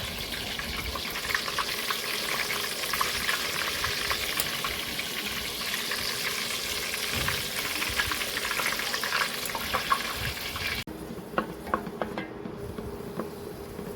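Chicken koftas frying in hot oil: a steady sizzle with many small crackling pops. It cuts off abruptly near the end, leaving a quieter stretch with scattered clicks.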